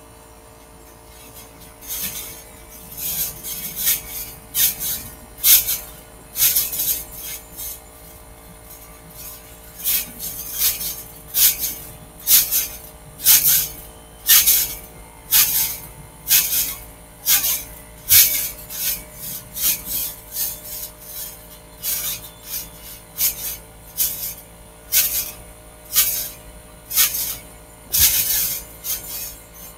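Backyard trampoline in use: a rasping creak of the springs and mat with each bounce, roughly every two-thirds of a second, in long runs of bounces. There is a pause of about two seconds near a quarter of the way in.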